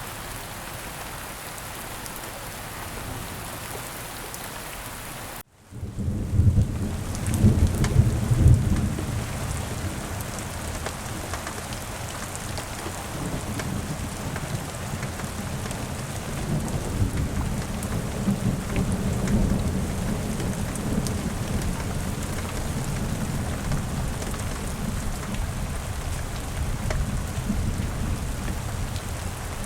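Steady rain falling. About five seconds in it cuts out for an instant and heavier rain starts with a rumble of thunder, loudest a couple of seconds later, then rain with a low rumble carries on.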